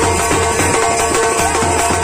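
Wedding brass band playing: held horn notes over a steady drum beat.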